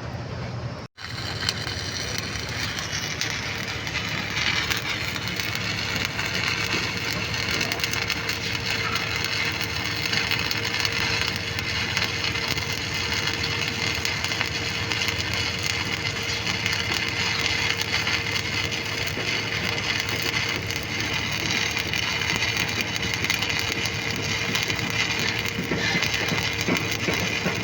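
Stick (shielded metal arc) welding arc crackling steadily, with a steady hum underneath; a split-second break about a second in.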